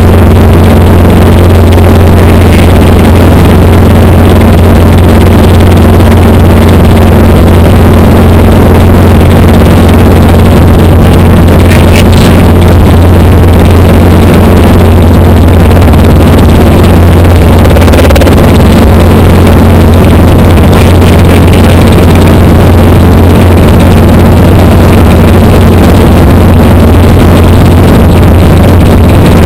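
Small helicopter in steady cruise, heard from inside the cabin: a loud, unchanging low engine and rotor drone over constant wind rush.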